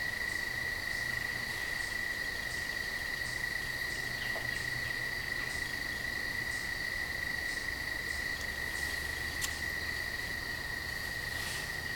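Crickets trilling steadily on one high, even pitch, with a fainter chirp pulsing about one and a half times a second.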